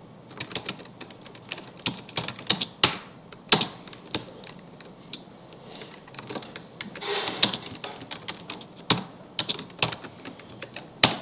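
Typing on a computer keyboard: irregular runs of key clicks with short pauses, as code is entered.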